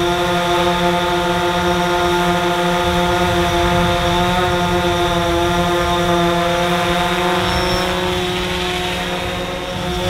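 DJI Phantom 4 Pro quadcopter hovering, its four propellers giving a steady buzzing hum that holds one pitch, easing off slightly near the end.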